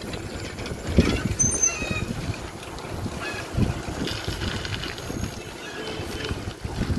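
Riding a bicycle along a road: wind rumbling on the microphone, with irregular low thumps, the strongest about a second in.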